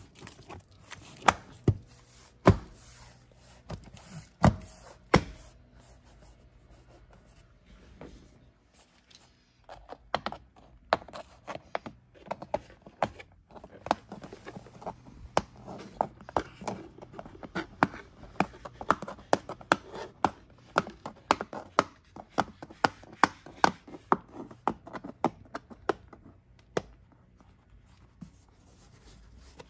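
Plastic door sill trim being pressed and knocked into place by hand, snapping its clips home: several sharp knocks in the first five seconds, then a long run of rapid taps from about ten seconds in until near the end.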